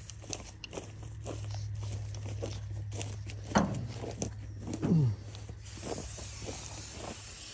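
Footsteps crunching through cut hay stubble over a low steady machine hum that stops about five seconds in. Two brief sounds falling in pitch come a little past the middle.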